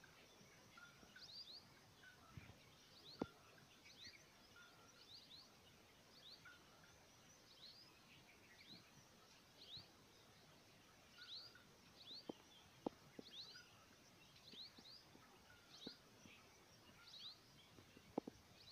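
Faint bird calls: short high chirps repeated every second or so, over quiet outdoor background noise, with a few soft clicks.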